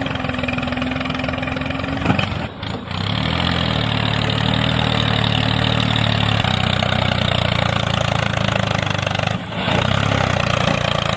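Small motor of a DIY mini tractor running steadily with a rapid pulsing rumble. It dips briefly twice, about two and a half seconds in and again near the end.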